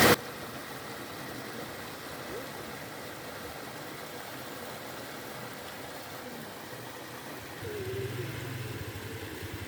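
Steady rushing of river water. A low hum joins in near the end.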